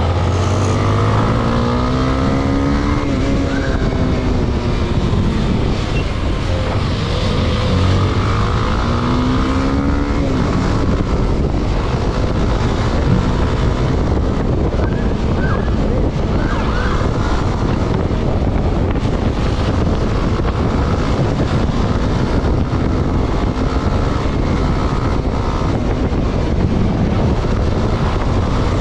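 Motorcycle engines revving, their pitch rising and falling over the first ten seconds or so, under a constant rush of wind on the microphone at speed.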